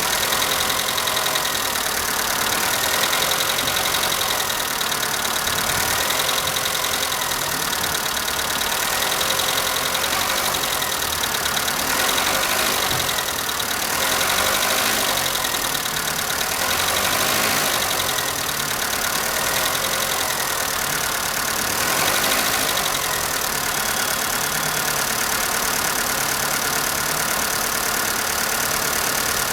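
Skoda Fabia's 1.4 16-valve petrol engine idling steadily with a knocking from the valve train, which the owner puts down to the hydraulic lifters; the knock has persisted even after all sixteen lifters were replaced.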